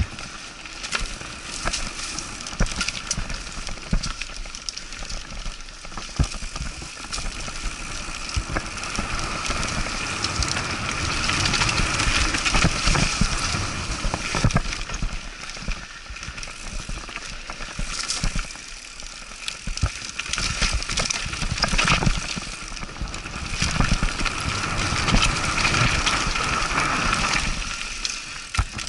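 Mountain bike riding down a rough dirt and leaf-covered singletrack. The tyres crunch over dirt and leaves, with frequent knocks and rattles as the bike hits bumps.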